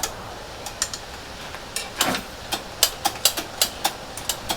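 Irregular light clicks and taps of hand tools working on a carburetor to free a stuck part, coming more often after about two seconds.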